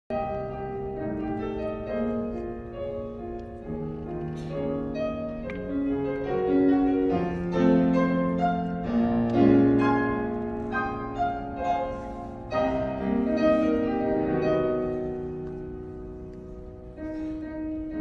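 Live orchestra playing a classical piece, with held chords and notes changing every second or so; it swells in the middle and eases off near the end.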